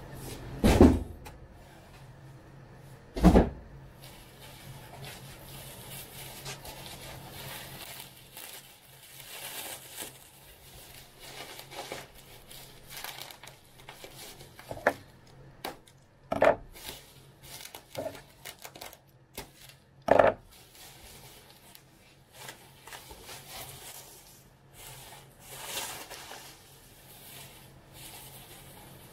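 Plastic bubble wrap rustling and crinkling as it is handled and pulled apart by hand, broken by a few sharp knocks, the loudest about a second in, about three seconds in, and about twenty seconds in.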